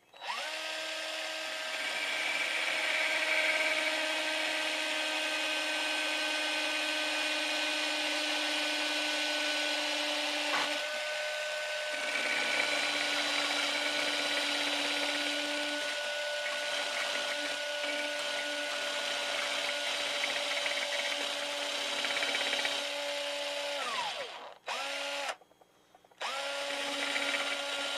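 Cordless drill spinning a sanding drum against the weld in a motorcycle exhaust baffle: a steady motor whine under a rasping grind, sagging briefly about ten seconds in as it bites. Near the end it winds down, gives a short burst, stops and runs again.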